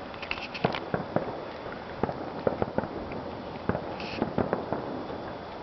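Aerial fireworks bursting overhead: an irregular string of sharp pops and bangs, with a brief crackle about four seconds in.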